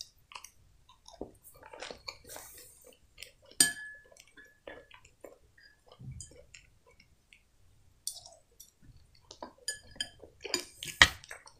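Close-up chewing of solyanka soup, with a metal spoon knocking against a glass bowl: one sharp ringing clink about a third of the way in and a cluster of louder clinks near the end.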